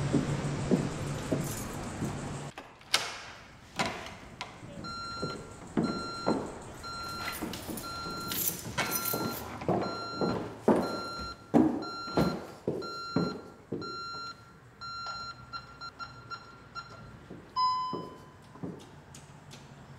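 Street traffic hum that cuts off about two and a half seconds in, then a door thunk and a run of footsteps and knocks in a quiet room. Over these, a high electronic beep repeats about twice a second and stops near the end, followed by a single short, lower tone.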